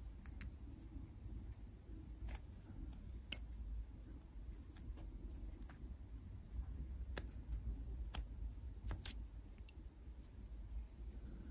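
Scattered small sharp clicks, about a dozen, from steel tweezers and fingers working masking tape off a tiny plastic model aircraft.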